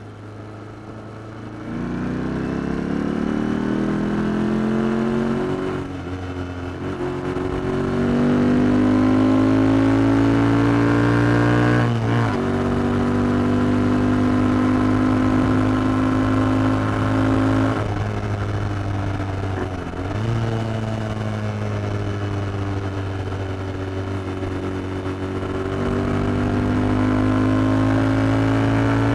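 Royal Enfield Continental GT 650's parallel-twin engine through its stock exhaust, heard from the rider's seat on the move. It pulls with rising pitch, broken by quick gear changes about 6 and 12 seconds in. It cruises steadily, eases off, and pulls again near the end.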